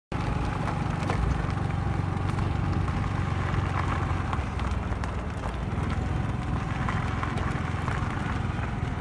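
Motor scooter ridden along a gravel-strewn runway: a steady low rumble of engine and wind on the microphone, with a faint steady whine and scattered small crackles of grit.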